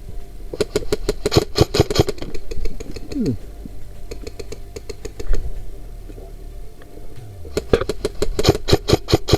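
Airsoft electric gun (AEG) firing two full-auto bursts of fast, sharp clicks, each about a second and a half long, one near the start and one near the end. Its gearbox motor whirs as it runs and winds down.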